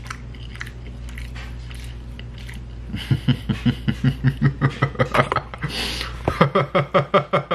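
A man chewing a mouthful of jollof rice, with faint mouth clicks. About three seconds in he breaks into quick rhythmic laughter, about four or five pulses a second. A second bout of laughing comes near the end.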